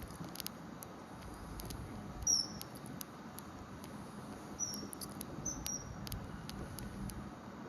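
Common kingfisher giving short, high, piercing whistled calls, about four of them, over a steady background hiss, with scattered faint clicks.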